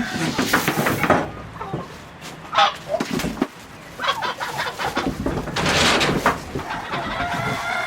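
Chickens clucking, with short calls and a longer drawn-out call near the end, among bursts of rustling.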